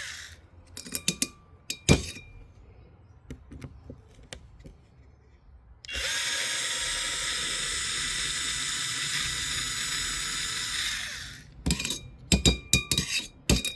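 Small cordless drill driver backing out the tiny hub bolts on a 1/4-scale RC dirt bike wheel. It runs steadily for about five seconds from the middle, with light metal clicks and clinks of bolts and bit before and after.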